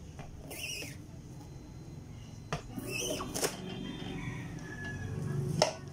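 Rubber squeegee scraping across the ink-loaded mesh of a hand screen-printing screen: a short swish about half a second in and a longer one around three seconds. A sharp knock near the end, over a steady low hum.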